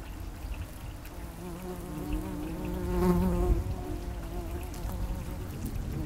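Yellow jacket wasps buzzing in flight, a wavering wing hum that rises to its loudest about three seconds in, over a low rumble.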